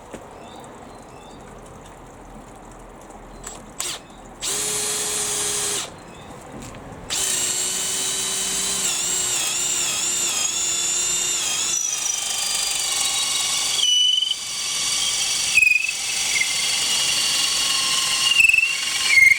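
Makita XPH07 18V brushless hammer drill, in low gear, driving a 12 mm by 500 mm auger bit into treated pine. After a short spin about four seconds in, it runs continuously from about seven seconds, its motor whine wavering and sinking in pitch under load as the bit bores deeper. There are a few brief stops in the last seconds.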